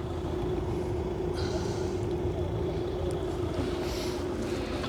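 Steady low mechanical drone with a constant hum, with two brief soft rustles, about a second and a half in and near the end.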